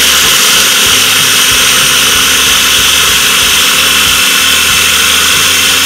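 Electric mini food chopper running steadily at full speed, its blade grinding walnuts and garlic into a paste for pkhali.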